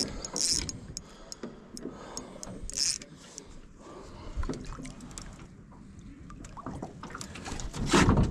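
Hooked rainbow trout splashing at the surface beside an aluminium rowboat, among scattered small clicks and knocks. A louder burst of splashing comes near the end as the fish is lifted out of the water, dripping.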